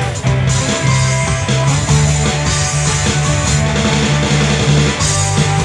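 Rock band playing an instrumental passage: electric guitar over drums and steady low bass notes.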